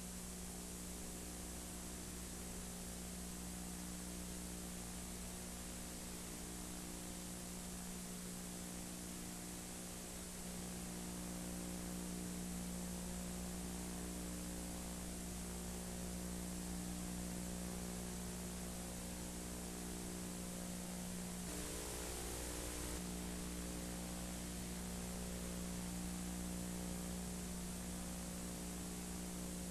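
Steady electrical hum with a constant hiss of line noise, no speech or race sounds; the hiss swells briefly for a second or so about three-quarters of the way through.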